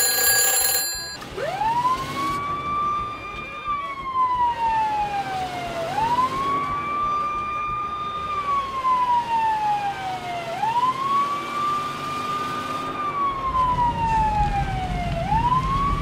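A telephone rings briefly, then a fire engine siren starts about a second in. It wails in repeating cycles, each rising quickly, holding, then falling slowly, about every four and a half seconds.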